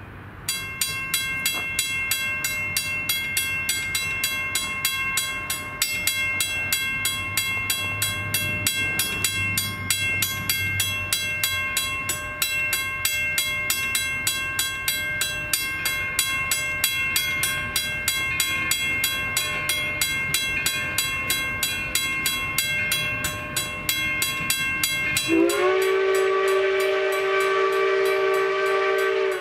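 Railroad grade-crossing bell ringing steadily, about two strikes a second, as the crossing signals flash for an approaching train. Near the end a steam locomotive's whistle comes in over the bell, rising in pitch and then held. The locomotive is a 2-8-0 Consolidation sounding for the crossing.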